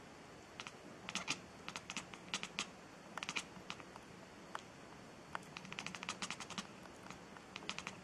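Domestic cat chattering while staring upward: runs of quick, dry clicks from its jaw and teeth, coming in several short bursts.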